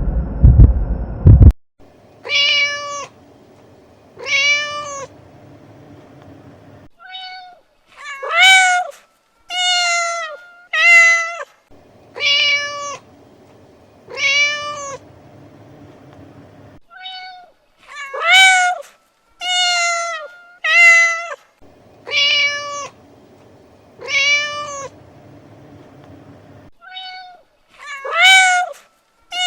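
Domestic cat meowing over and over in a repeating sequence: two meows, then a short chirp and three quicker, higher meows, the set coming round again about every ten seconds. It opens with a loud low rumble that cuts off after about a second and a half.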